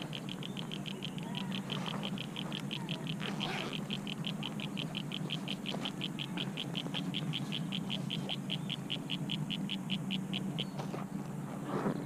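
A high, even chirp repeating about five times a second from a calling animal, stopping about a second before the end, over a low steady hum.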